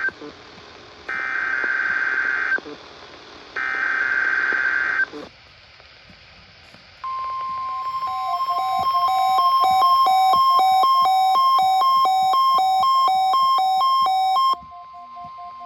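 NOAA Weather Radio SAME digital header: two harsh buzzing data bursts about a second and a half each, with the end of a third at the very start. After a short pause comes a long electronic alert tone, a steady tone with a faster pulsing beep over it, which cuts off near the end, leaving a fainter tone.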